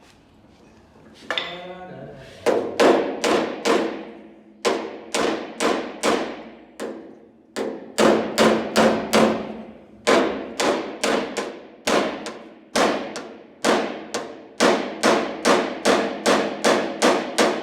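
Hammer blows on the steel sheet metal of a Fiat 1600 Coupé door, a long run of sharp metallic strikes, each ringing briefly, about two to three a second with short pauses between runs. It is panel beating, knocking out small low dents along the door edge.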